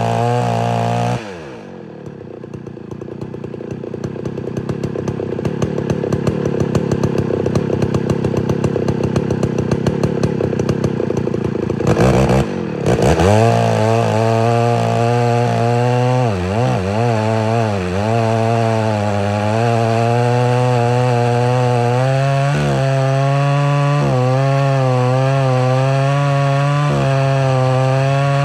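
Homelite Super XL-925 82cc two-stroke chainsaw with its governor blocked off, running at full throttle and then cutting into a log: the engine pitch drops as the chain bites about a second in, and after a short break near the middle it keeps cutting with its pitch wavering under load.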